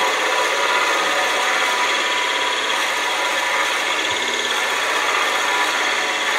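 Wood lathe spinning a wood blank while a 1¾-inch Forstner bit in the tailstock quill bores into it: a steady rasping cut, with a faint steady whine under it.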